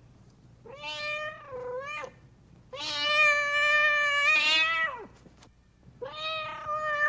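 Domestic cat meowing, three drawn-out meows in a row, the middle one the longest and loudest at about two seconds.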